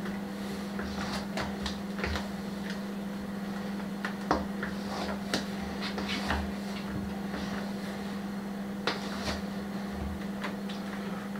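A spatula scrapes and taps against a large stainless steel mixing bowl as a chocolate cream mixture is folded through, giving scattered soft scrapes and a few sharp clicks. A steady low hum runs underneath.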